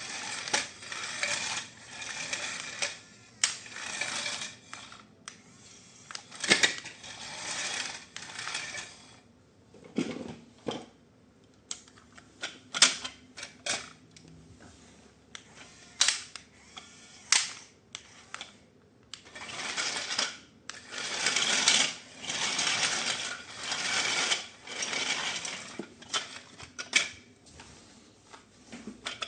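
Handling of toy packaging and plastic parts: repeated bursts of rustling and crinkling, with sharp clicks and taps between them.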